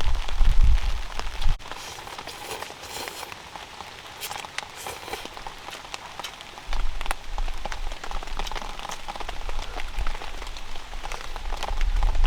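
Rain falling steadily, with many small drop ticks. A low rumble under it cuts off about a second and a half in and comes back about halfway through.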